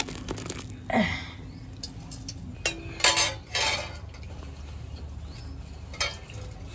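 A few clanks and knocks of metal kitchenware: the emptied pan and the steel strainer and bowl being handled after curdled milk has been strained through a cloth. One knock comes about a second in, a brief ringing clank around three seconds, and another knock near the end.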